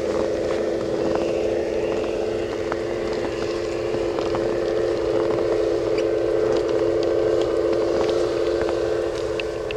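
LGB garden-scale model locomotives running while they push a snow plow through snow: a steady mechanical hum with scattered light clicks and crackles.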